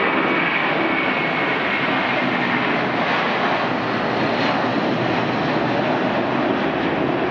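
Twin Pratt & Whitney PW4168A turbofans of an Airbus A330-300 at takeoff thrust, a steady loud jet noise as the airliner rotates and lifts off. A faint high whine is heard in the first couple of seconds.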